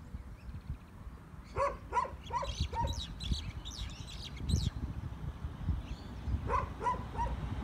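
A dog barking in two short runs: four quick barks about a second and a half in, then three more near the end. Birds chirp between the two runs.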